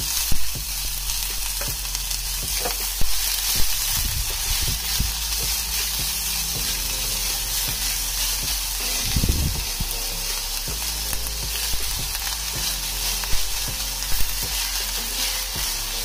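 Chopped onions and garlic sizzling in hot oil in a saucepan, stirred with a spatula that knocks and scrapes against the pan now and then.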